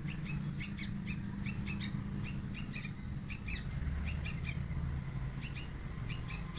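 Young hand-reared yellow-vented bulbul (trucukan) giving short chirps again and again, often in quick pairs or threes, over a steady low hum.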